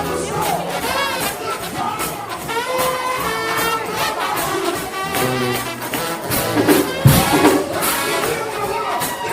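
Trombone shout band playing up-tempo gospel music: several brass horns with wavering, shaken pitch over a steady percussion beat.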